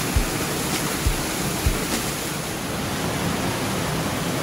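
Small waterfall splashing down onto rocks: a steady rush of falling water. There are three brief low thumps in the first two seconds.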